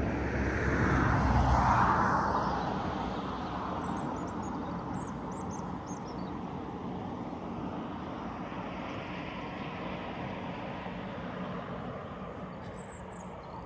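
A passing engine swells to its loudest a second or two in, its pitch falling, then fades to a steady distant drone. A few faint high chirps sound over it.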